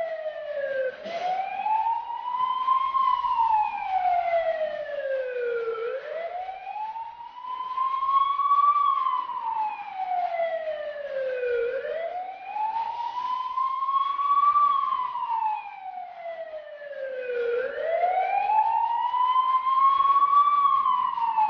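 A siren wailing in slow cycles, its pitch rising for about three seconds and falling for about three, about four times over.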